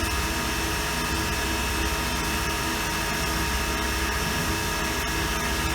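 CNC machining center running its program, the spindle turning steadily with a level whine while the tool feeds slowly into the saw carriage part. The sound is even throughout, with no breaks.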